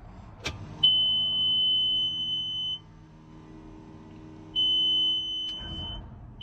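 Farm machine's cab warning buzzer beeping with a steady high tone, sounding twice, about two seconds and then about a second and a half, after a click just before the first beep. A steady lower hum runs under most of it as the machine, with a battery that had gone dead and been on a jump charge, is tried again and does not start.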